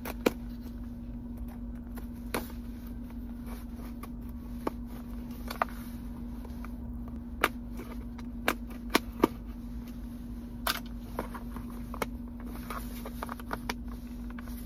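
A package being handled and opened by hand: irregular sharp clicks, taps and crinkles of packaging, over a steady low hum.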